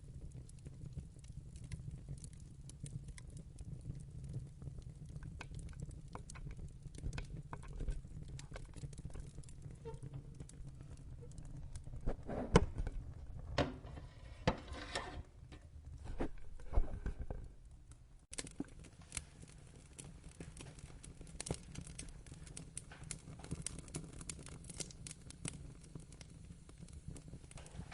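Wood fire crackling in a fireplace: a low steady rumble with continual fine crackles, and a run of louder sharp pops around the middle.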